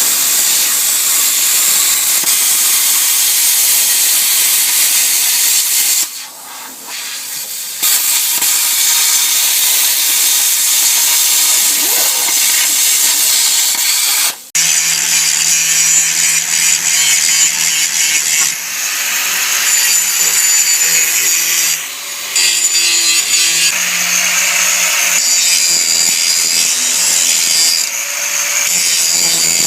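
Power tool cutting or grinding into the rusted steel of a Jeep Wrangler TJ frame, running loud and steady. It eases off briefly about six seconds in and stops for a moment about halfway before starting again.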